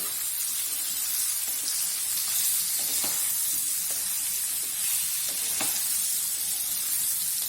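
Cut okra sizzling as it fries in oil in a pan, a steady hiss, with a few faint clicks from stirring. The okra is being fried until its sliminess cooks off.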